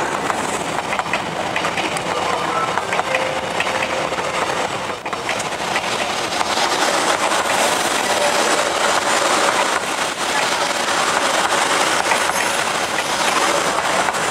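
Vietnam Railways passenger coaches rolling past close by, hauled by a D19E diesel locomotive: a steady rumble of steel wheels on the rails with a continuous clatter of wheel clicks. A faint thin squeal comes and goes.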